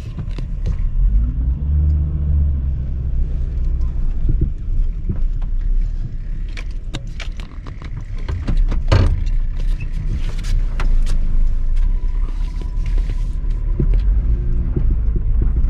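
Truck driving, heard from inside the cab: a steady low engine and road rumble, with the engine note rising and falling as it pulls away about a second in and again near the end. Scattered clicks and rattles sound from the cab.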